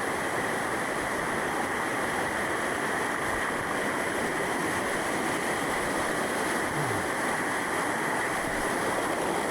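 Water cascading down a waterfall over rocks, a steady rush.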